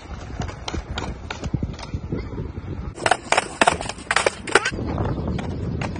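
Skateboard wheels knocking down concrete steps: a run of irregular clacks and knocks, thickest and loudest about three to four and a half seconds in.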